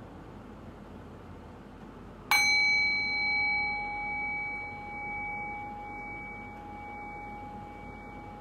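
Meditation bell struck once about two seconds in, ringing on with a clear tone that fades slowly, wavering in loudness about once a second; the bell marks the start of the guided meditation.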